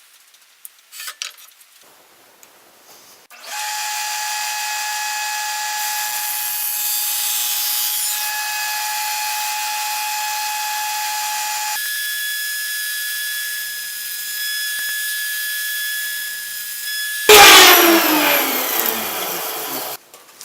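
Table saw starts about three seconds in and runs with a steady whine, its tone changing partway through. Near the end comes a sudden, much louder burst as the blade cuts the 3/4 inch plywood, and the pitch then falls until the sound stops just before the end.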